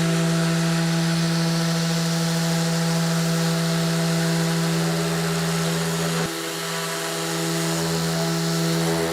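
Festool electric sander running steadily with 80-grit paper, making slow passes along a wooden board with the dust extractor drawing air through it. It gives a steady hum with a hiss over it, and the level dips slightly about six seconds in.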